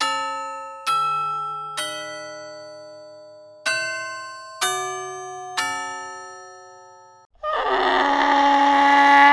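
Bell-like chime tones struck one at a time, six notes playing a short tune, each ringing out and fading. About seven and a half seconds in, a loud, dense, many-toned sound starts and holds until near the end.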